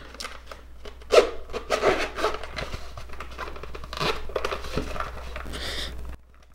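Hands opening packaging: rustling, crinkling and light knocks as the box holding a DJI Mavic Air drone is unpacked. The sounds stop abruptly near the end.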